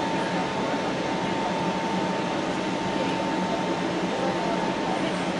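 Airbus A320neo engine and airflow noise heard from inside the passenger cabin during the climb after takeoff. It is a steady rush with a steady whine above it.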